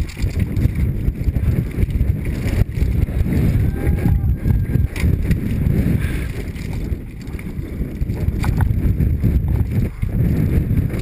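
Wind buffeting the helmet-mounted camera's microphone, with the mountain bike rattling and knocking over rocks on a fast enduro descent.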